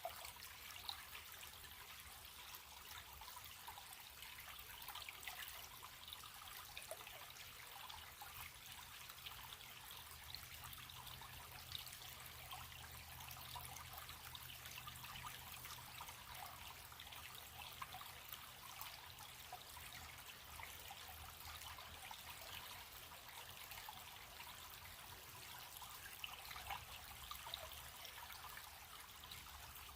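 Running stream: a steady rush and trickle of water with small splashes throughout, and a faint low hum underneath.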